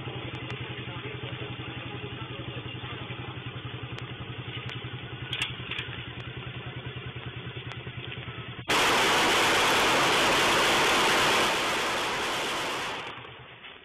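Motorcycle engine idling with a steady low throb. About nine seconds in, a loud, harsh rush of noise cuts in, holds for about four seconds and fades out.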